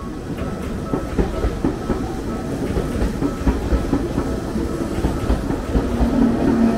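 A train passing close by, its wheels clattering over rail joints above a low rumble, growing louder toward the end.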